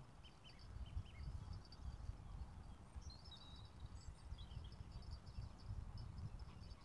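Faint birds chirping and twittering, short high calls scattered throughout, over a low, uneven wind rumble on the microphone.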